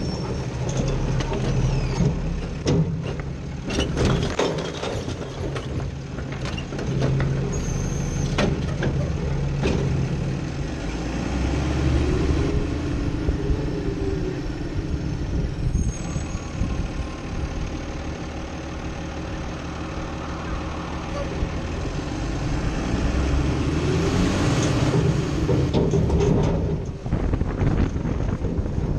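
Garbage truck engine, an Autocar WX64 with a Heil Rapid Rail side-loader body, heard from inside the hopper, running steadily with knocks and rattles of the body in the first ten seconds. The engine speeds up and eases off twice, about 12 and 25 seconds in.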